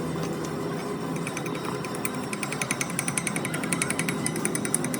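A workshop tool rattling with rapid, evenly spaced strikes, about ten a second, starting about a second in, over a steady workshop background.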